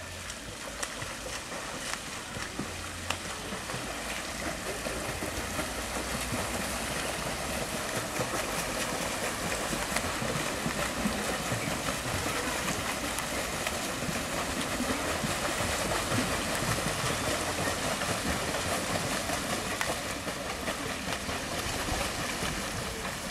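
Pool water splashing and churning as children kick across a swimming pool with kickboards. It is a steady splashing that grows a little louder over the first few seconds.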